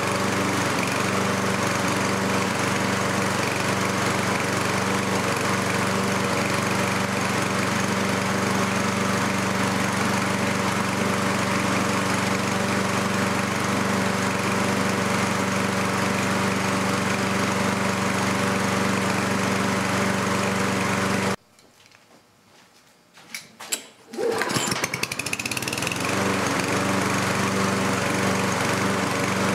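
A walk-behind lawnmower's small engine runs steadily at an even speed. About 21 seconds in it cuts off suddenly, and after about three seconds of near silence it starts again, its pitch rising as it comes up to speed, then runs steadily.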